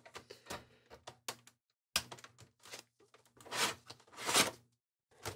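Light clicks and taps of a Phillips screwdriver backing out the hard-drive screw, then the PS4 Pro's metal hard-drive caddy scraping as it slides out of its bay, with a sharp click about two seconds in and two short scrapes after the middle.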